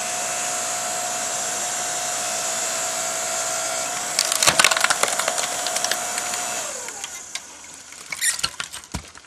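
Ryobi 4-ton electric log splitter's motor running with a steady whine as the ram drives into a 16-inch cedar round. About four seconds in the wood cracks and splinters as it splits. The motor winds down in pitch near seven seconds, and a few knocks of wood follow near the end.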